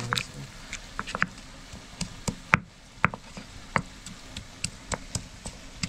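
Irregular sharp knocks and taps of kitchen work, about three a second and uneven in strength, the loudest about two and a half seconds in.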